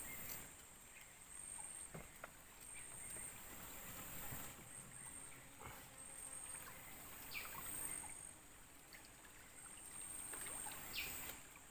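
Quiet river ambience around a small moored fishing boat: faint water lapping and small handling noises, under a steady high insect buzz that pulses on and off about once a second. Two short high chirps sound about halfway through and near the end.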